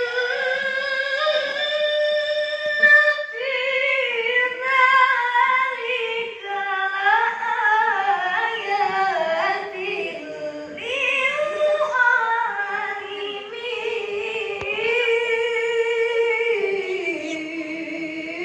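A high solo voice reciting the Quran in the melodic tilawah style, in long, ornamented, sustained phrases with brief breaths between them.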